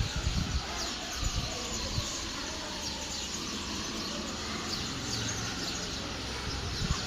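Many small birds chirping together, a constant overlapping stream of short, quick, high chirps over steady background noise, with a few low thumps near the start.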